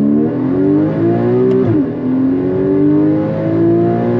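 Porsche 981 Cayman GTS's 3.4-litre flat-six accelerating hard, revs climbing, dropping at a quick PDK upshift about a second and a half in, then climbing again in the next gear.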